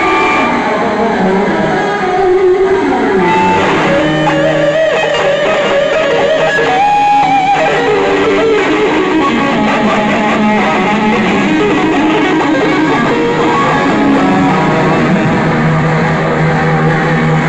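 Live blues-rock band playing: electric guitars over bass guitar and drums.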